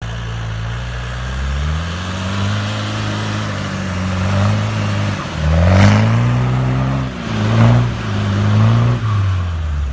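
Off-road 4x4's engine revving up and down under load, its pitch rising and falling several times, with louder surges and a rushing noise a little past halfway and again about three quarters of the way in.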